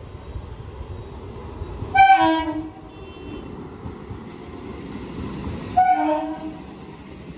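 Indian Railways train horn sounding two short blasts about four seconds apart, over the steady rumble of a train running on the track.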